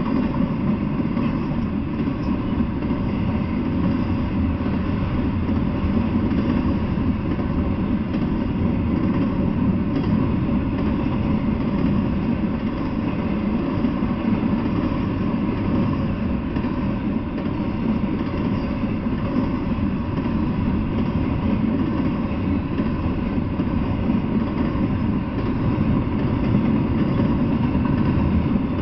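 Double-stack intermodal freight cars rolling steadily past: a continuous low noise of steel wheels running on the rails, with no breaks or pauses.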